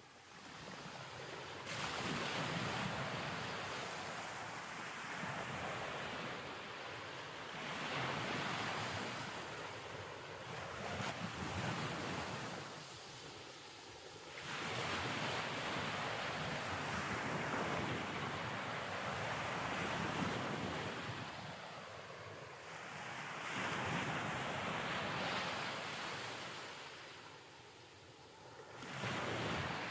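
Ocean surf: a rushing wash of waves that swells and recedes in slow surges every several seconds.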